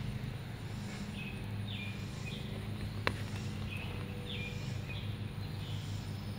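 Steady low hum of an outdoor air-conditioner condenser unit running. A bird gives short falling chirps a few times over it, and there is a single light click about three seconds in.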